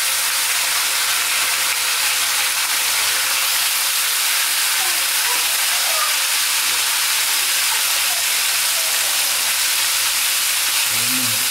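Whole jacks frying in a pan of hot oil: a steady, even sizzle.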